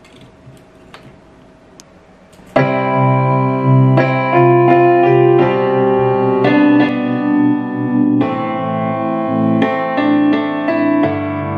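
Piano music played through a bookshelf studio monitor speaker driven by a DIY LM3886 bi-amplifier, starting suddenly about two and a half seconds in. Before it, a few faint clicks over a low hum.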